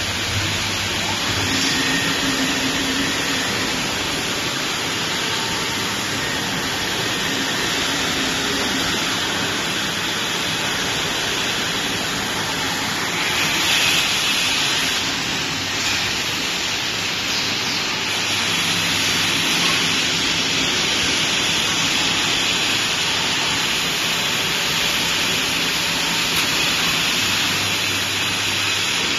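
Steady hissing machine noise from a running CNC lathe with an automatic bar feeder, with faint motor hum underneath.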